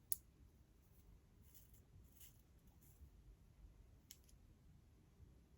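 Near silence with faint handling sounds: a sharp click just after the start, a few soft, high swishes in the middle, and another click about four seconds in.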